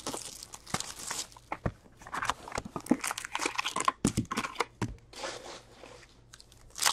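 Plastic shrink wrap crinkling and tearing as it is stripped off a 2020-21 Upper Deck Trilogy hockey card box, then cardboard flaps opening and wrapped card packs rustling as they are pulled out and set down in a stack. The crinkling is busiest in the first few seconds and quieter after the box is open.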